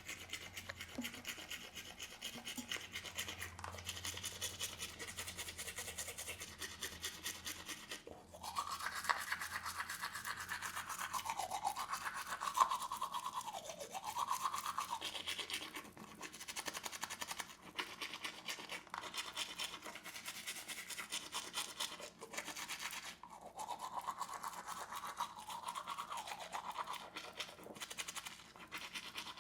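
Teeth being brushed: fast, continuous scrubbing of toothbrush bristles over the teeth. A wavering tone rises and falls over the scrubbing for several seconds about eight seconds in, and again a few seconds before the end.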